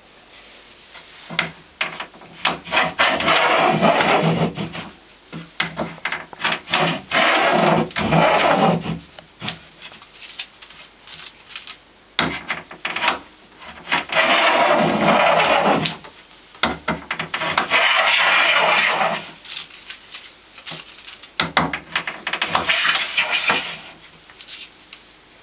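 Stanley No. 72 chamfer plane taking shavings off the edge of a wooden board: about five long cutting strokes of a second or two each, with short knocks and clicks between them as the plane is lifted and set back down.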